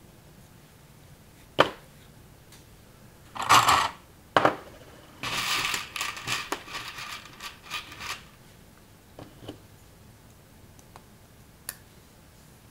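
Plastic Mega Bloks building bricks being handled and snapped together: a sharp click, a short clatter a couple of seconds later, then about three seconds of rustling and scraping, and a few faint clicks near the end.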